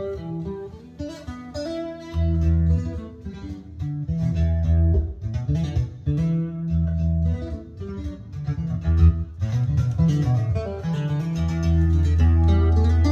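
Music played back through a Cerwin-Vega 10SB studio monitor, with long deep bass notes under a higher melody.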